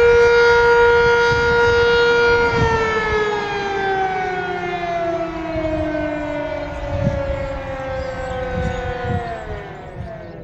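Sentry 3V8-H outdoor warning siren holding a steady tone, then winding down at the end of its weekly test. After about two and a half seconds the pitch starts to fall slowly, then drops faster near the end as the siren fades.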